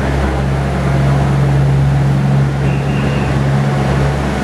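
KiHa 75 diesel railcar's engines running with a steady low drone as the train pulls out along the platform, over a rumble of the moving cars. There is a faint brief high tone about three seconds in.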